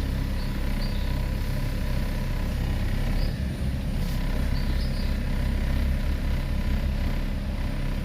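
Ford Mustang's engine idling steadily.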